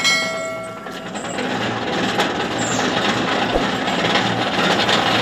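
A ringing metal clang from the steel pipe and rig fittings, which fades over about a second. It is followed by the steady running of the borewell rig's engine and winch as it hauls the column pipe up, growing slightly louder.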